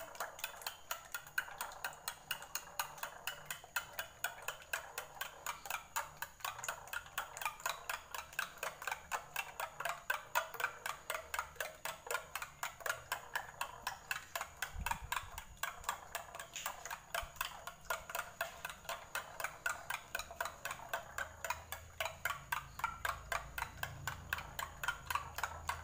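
A metal spoon beating raw eggs in a glass bowl, clicking against the glass in a steady rhythm of about four strokes a second, with the wet slosh of the beaten egg.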